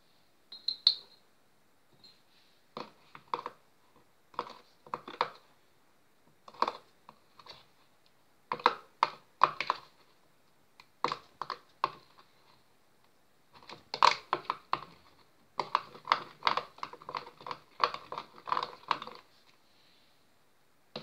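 Metal spoon clinking and scraping against a glazed bowl while stirring a thick glue-based slime mixture, in short irregular bursts of taps with pauses between.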